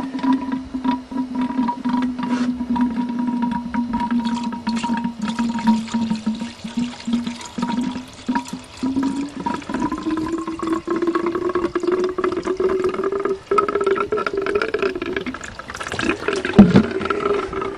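Rainwater poured from a plastic jug into a car's coolant expansion tank, gurgling and glugging, refilling a cooling system drained by a blown radiator hose. A held tone in the pour rises in pitch over the second half, and there is one sharp knock near the end.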